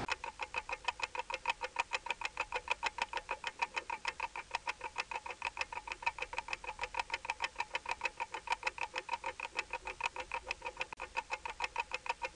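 Clock-ticking sound effect: rapid, even ticks, roughly four or five a second, sped up to mark time passing.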